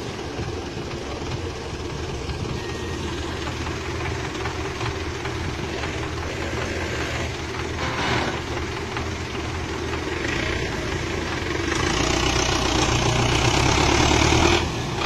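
Belarus tractor diesel engines running steadily, then pulling harder and louder from about twelve seconds in, as the tractor mired in mud strains to be pulled free.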